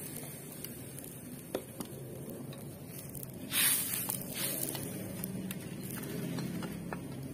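Metal spatula scraping and clattering in an aluminium wok of coconut milk, one louder scrape about halfway through and a lighter one just after, over a wood fire crackling with a few small pops.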